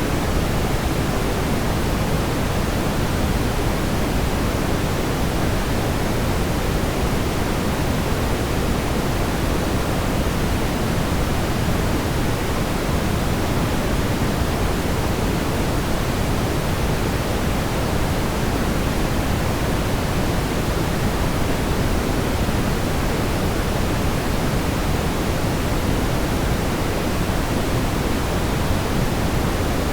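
Smoothed, generated brown noise: a steady, deep hiss weighted toward the low end, with no changes or events.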